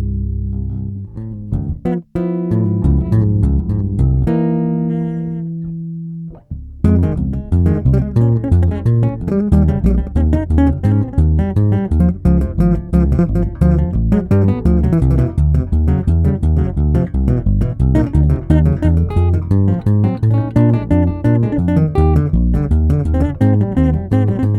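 Electric bass played through a TC Electronic SpectraComp compressor pedal: a few held notes, a short break about six seconds in, then a fast, even run of tapped notes, the compressor keeping their levels even.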